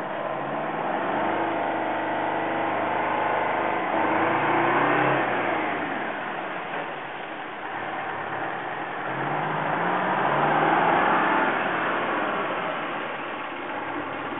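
1981 International Harvester Paystar water truck's diesel engine accelerating as the truck drives past. Its pitch rises three times as it pulls through the gears: near the start, about four seconds in, and around ten seconds in. It is loudest about four and eleven seconds in.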